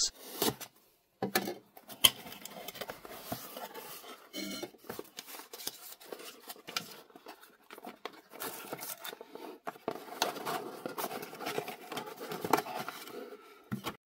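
A utility knife slits the paper seal on a cardboard box. Then the cardboard flaps and packaging are opened and handled, with irregular scrapes, rustles and small knocks.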